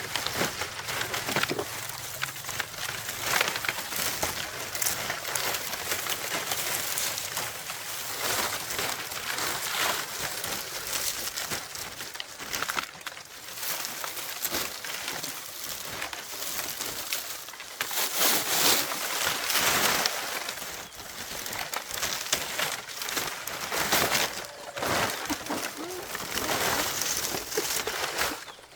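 Dry thatching leaves rustling and crackling as they are handled and gathered, in repeated surges, with birds calling.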